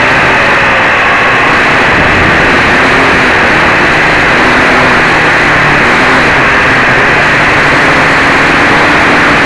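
Quadcopter's four DT750 brushless motors spinning 11x4.7 propellers in flight, picked up loud and close by a camera mounted on the frame: a continuous rushing buzz with a faint motor pitch drifting up and down.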